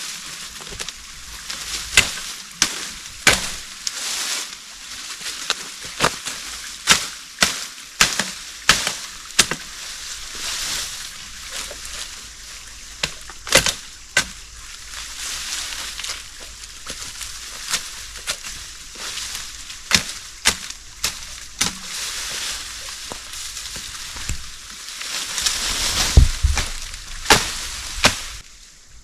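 Wood being chopped: a long series of sharp, irregular knocks and cracks, one every second or so, over a steady hiss.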